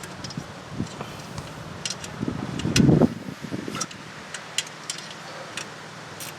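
Light clicks and clinks of metal parts and tools being handled while a front wheel hub is reassembled, with one louder, duller knock about three seconds in.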